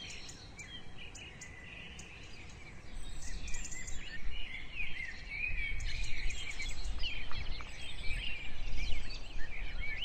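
Many small birds chirping and twittering in quick, short calls over a steady low rumbling background noise that grows louder about three seconds in.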